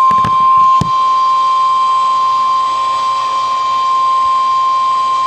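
NOAA Weather Radio 1050 Hz warning alarm tone: a single steady, loud high tone, with two short clicks in the first second. The tone is the alert that a warning broadcast, here a severe thunderstorm warning, is about to follow.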